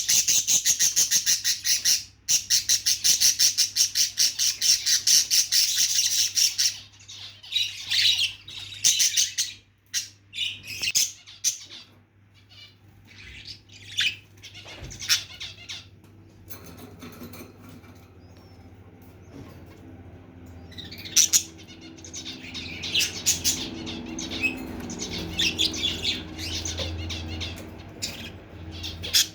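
Lovebirds and their chicks calling. A dense, rapid run of high squawking chatter lasts about the first six seconds, then breaks into scattered shorter calls and chirps, which thicken again near the end.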